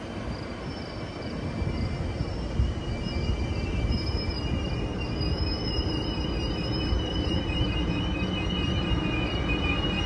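Amtrak Superliner bilevel passenger cars rolling past, with a steady rumble of wheels on the rails and thin, high squeals from the wheels. The sound grows louder about two seconds in.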